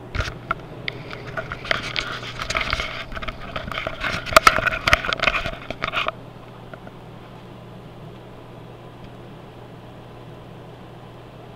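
Handling noise from a webcam being picked up and turned by hand: rubbing, scraping and knocks for about six seconds, the loudest near the middle. Then they stop, leaving only a steady low hum.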